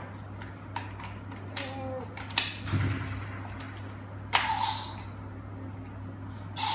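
Hard plastic parts of a Power Rangers Dino Charge toy clicking and snapping as it is handled, with a handful of sharp clicks, the loudest about two and a half and four and a half seconds in.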